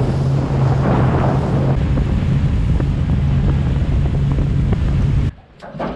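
Outboard motor of an aluminum skiff running at speed: a steady, loud drone over the rush of the hull through the water, with wind on the microphone. It cuts off suddenly about five seconds in.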